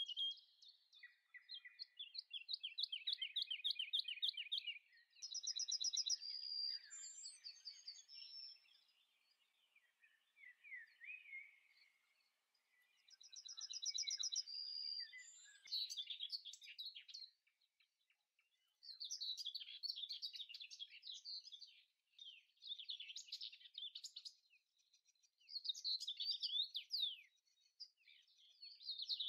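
Songbirds chirping and trilling in quick short phrases, with brief pauses between them.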